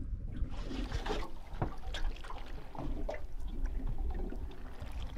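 Water lapping and splashing against a small aluminium boat's hull, with scattered light knocks and clicks.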